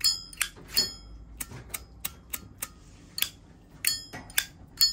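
Nickel-finish Zippo lighter's hinged lid flicked open and snapped shut again and again: about a dozen sharp metallic clicks, each with a bright ring. It is the crisp Zippo 'ting' that marks this lighter as having a good sound.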